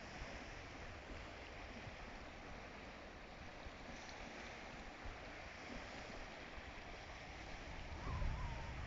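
Steady outdoor wind noise, with a low rumbling gust buffeting the microphone near the end.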